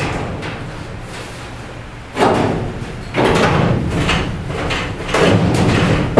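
Steel quarter panel being wrenched and flexed loose from the car body. The loose sheet metal bangs and rumbles in three loud bursts, each ringing on for a second or so.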